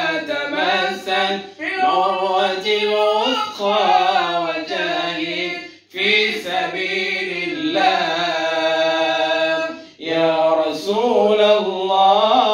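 Unaccompanied voices chanting an Arabic devotional song in praise of the Prophet, led by a man singing into a handheld microphone, with long ornamented held notes. The phrase breaks off briefly about six seconds in and again near ten seconds.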